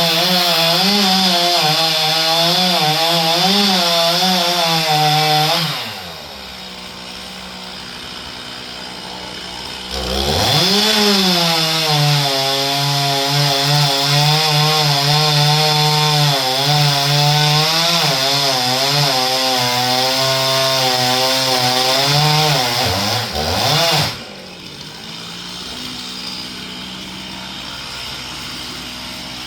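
Two-stroke chainsaw cutting pine at full throttle, its pitch wavering under load, dropping to idle about six seconds in, revving back up about four seconds later, and falling back to idle again near the end.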